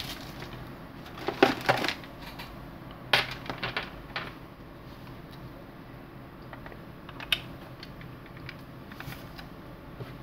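Scattered clicks and small plastic knocks as a USB cable is pulled from a USB power meter and a red USB cable's plug is handled and pushed into it, with the cable rattling against the desk.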